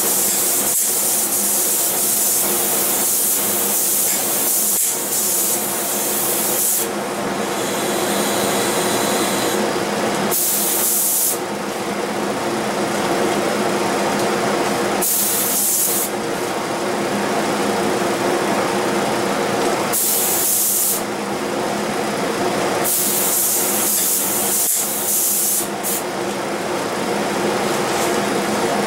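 Spray gun hissing as wood finish is sprayed, the hiss stopping and starting again several times between passes, over a steady machine hum.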